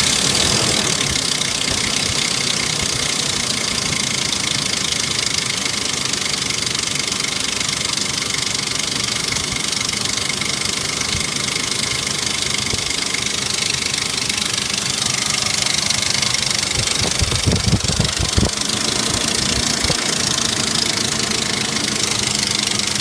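1998 Ford Explorer engine idling with a loud, rapid clicking from the engine, which turned out to be a broken timing chain tensioner. The clicking grows louder with a few heavier low thumps about 17 seconds in.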